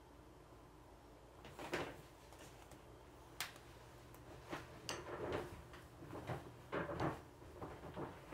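Close-up eating sounds of live coconut worms (palm weevil larvae), picked up with chopsticks and chewed whole: after about a second and a half of quiet, a string of short irregular clicks and wet smacks.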